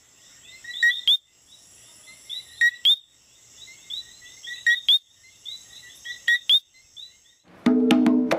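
Night chorus of coquí frogs: loud two-note "co-quí" calls about every two seconds, with many fainter chirps and a steady high tone beneath. Near the end, pitched percussive music starts.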